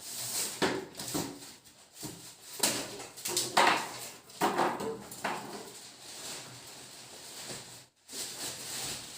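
Irregular knocks, scrapes and rustles of cardboard and plastic packaging being handled as a boxed refrigerator is unpacked.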